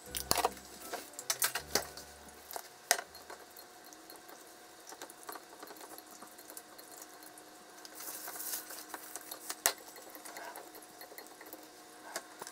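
Kitchen handling sounds: a spoon and lid clinking on a small glass container, with a few sharp clicks in the first three seconds. Then quieter tapping and rustling as chopsticks toss komatsuna greens in a glass bowl.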